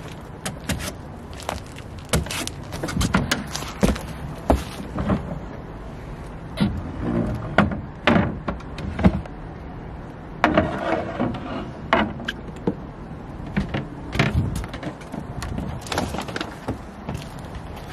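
Footsteps and an irregular run of knocks, clunks and rattles as a person boards a fibreglass sailboat and opens its companionway sliding hatch to climb below. There is a denser patch of clattering about two-thirds of the way through.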